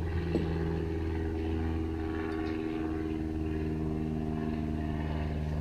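Steady low hum of a running machine, unchanging throughout, with a faint click about a third of a second in.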